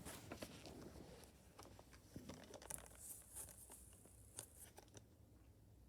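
Faint rustling and light clicks of a Blu-ray case and its paper and disc contents being handled, busiest in the first few seconds and dying away near the end.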